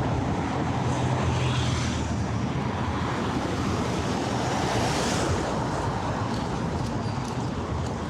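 Steady city road traffic: engines running and tyres hissing as cars go by, with one vehicle swelling past about five seconds in.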